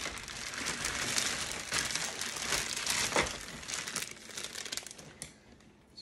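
Plastic packaging crinkling and rustling as it is handled and pulled off a new appliance, dying down about five seconds in.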